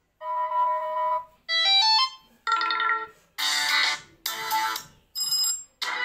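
A Lava phone's loudspeaker playing short previews of its stock Android ringtones one after another, each cut off after half a second to a second as the next is tapped: about six different clips, first a steady two-note tone, then a rising run of notes, then fuller musical snippets.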